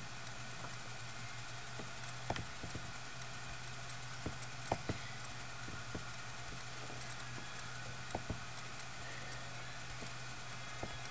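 Faint computer mouse clicks, a few in quick pairs, over a steady low hum and hiss.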